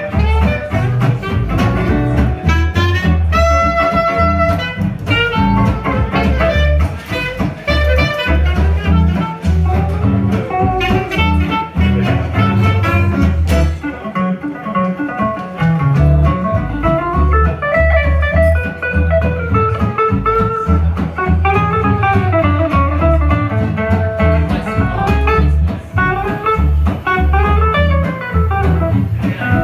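Live small swing jazz band playing an up-tempo tune: acoustic guitar and double bass keep a steady beat while a melody line rides on top.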